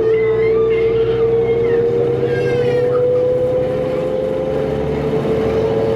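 A Cummins ISL diesel in a New Flyer D40LF transit bus running under way, with a strong steady turbo whine that climbs slowly in pitch as the bus gathers speed.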